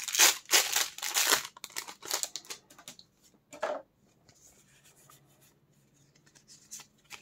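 Pokémon TCG booster pack's foil wrapper being torn open: a quick run of sharp rips and crinkles over the first two and a half seconds and one more short tear a second later, then faint rustling over a low steady hum.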